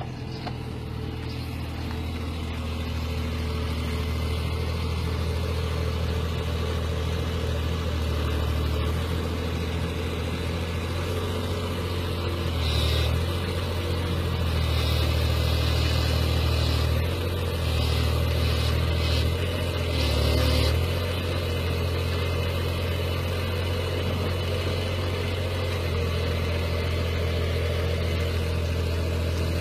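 Excavator's diesel engine running steadily, swelling louder a few times around the middle.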